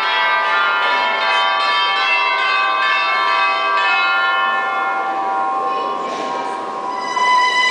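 Church bells pealing, many notes struck one after another and ringing on over each other.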